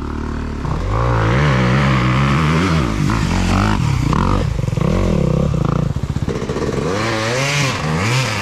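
Dirt bike engine revving hard, its pitch rising and falling over and over as the rider works the throttle.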